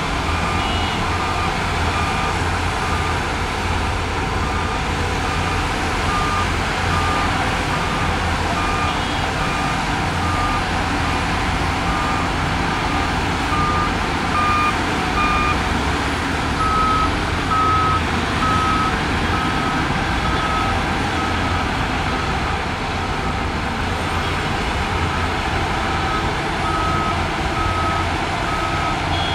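Reversing alarm on earthmoving machinery beeping steadily, about one and a half beeps a second, over the steady low running of a heavy diesel engine. About halfway through, a slightly higher-pitched beeping takes over.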